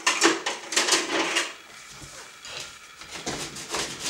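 Scraping and knocking on a metal baking sheet as baked prosciutto rolls are loosened from the pan: a quick run of strokes in the first second and a half, then more about three seconds in.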